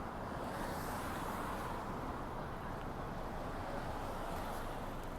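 Steady hum of city street traffic, an even wash of noise with no single sound standing out.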